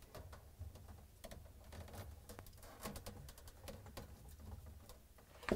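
Faint handling noise: small scattered clicks and rustles as wiring is routed by hand along a refrigerator's aluminium evaporator coil, with one sharper click near the end.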